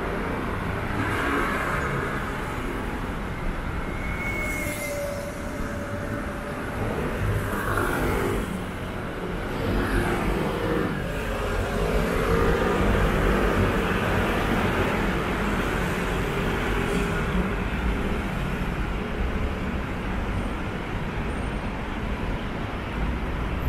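City street traffic: steady road noise from cars passing, swelling louder for a while in the middle.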